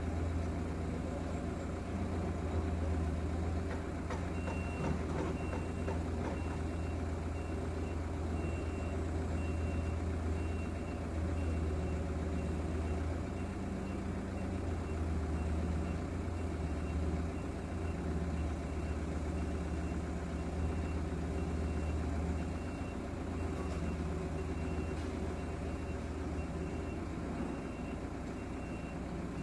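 An engine idling with a steady low hum, and from about four seconds in a reversing alarm beeping at an even pace, about once a second.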